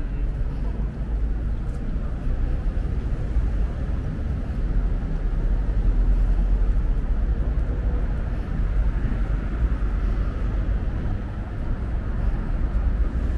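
City street ambience: a steady low rumble of road traffic that swells a little midway.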